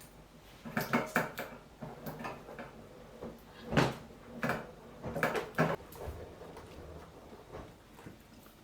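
A series of short knocks and clunks, like things being handled around a home: cupboard doors, drawers or objects set down. They come in small clusters over the first six seconds, then die away.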